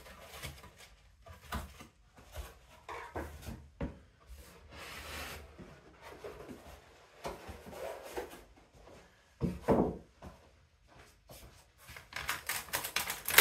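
Cardboard and molded paper-pulp packaging being handled and lifted out of a carton: irregular rubbing and scraping with a few short knocks, and a louder rustle near the end as the plastic-wrapped printer is touched.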